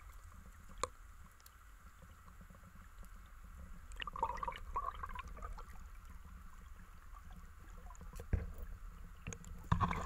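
Muffled water sound heard through a submerged camera: a steady low rumble with faint gurgling and a few soft knocks, the loudest near the end.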